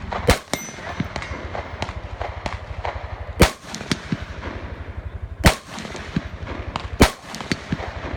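Rifle shots: four loud single shots spaced a few seconds apart, with many fainter sharp cracks between them, over a low steady hum.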